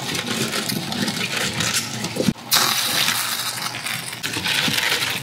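Water simmering in a stainless-steel pan as bok choy is blanched: a steady bubbling with small ticks and clicks. It drops out for a moment about two seconds in and comes back louder and hissier.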